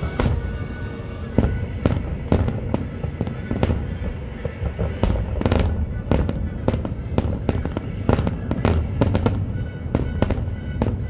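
Fireworks finale: aerial shells bursting one after another, about two bangs a second and coming thicker in the second half, with music playing underneath.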